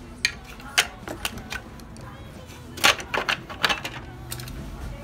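Plastic belt cover being fitted over the handwheel and belt of an industrial straight-stitch sewing machine head: scattered sharp clicks and knocks, loudest a little under three seconds in.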